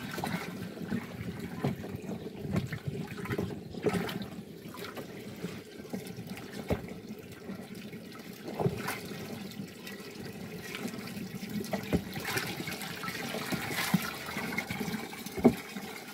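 Water pouring from a hose into a plastic drum of fertilizer slurry as it is stirred with a pipe, a steady splashing and sloshing. Occasional sharp knocks through it, the loudest near the end.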